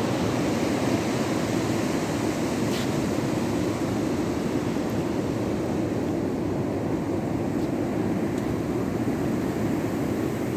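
Rough sea at high tide: surf breaking in a steady, continuous wash of noise.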